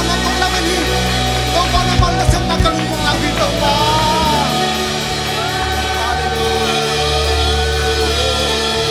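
Live worship band playing with singers: a lead voice with backing vocals over the band. Drum hits come through the first few seconds, then the band and voices hold a sustained passage.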